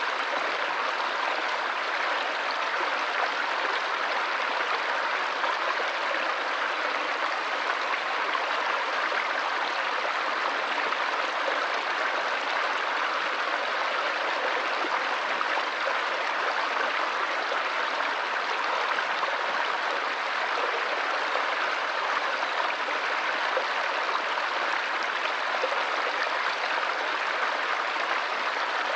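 Stream water running steadily, a continuous bubbling rush with no breaks or changes.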